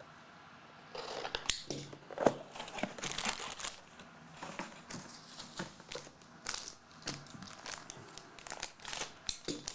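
Plastic wrapping being torn and crinkled as a trading-card box or pack is opened, a run of irregular sharp crackles starting about a second in.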